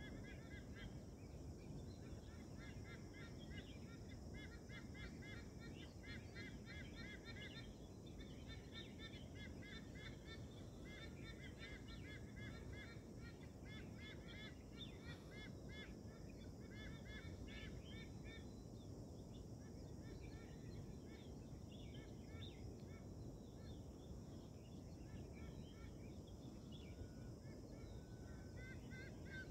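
Faint birdsong: birds giving quick runs of short chirping notes, many in a row, over a steady low rumble.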